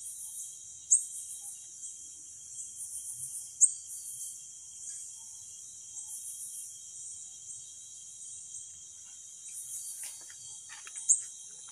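Night insect chorus of crickets: continuous high-pitched trilling that swells in pulses every second or so. Three sharp, short rising chirps stand out above it, about a second in, at about three and a half seconds, and near the end.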